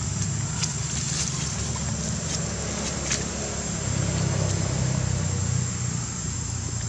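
A steady low engine drone, with a few short sharp crackles over it, the clearest about three seconds in.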